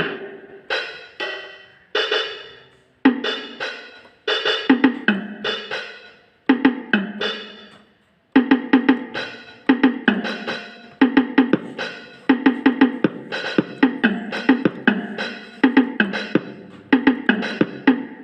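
Rockster RS41IN electronic keyboard playing struck notes in a percussive drum-like voice, each note dying away quickly. The notes come singly and in quick runs, with brief breaks between groups.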